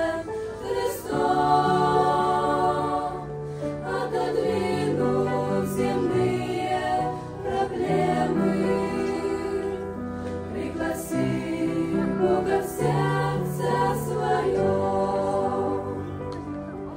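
A choir singing with instrumental accompaniment: held chords over sustained bass notes that change every second or so.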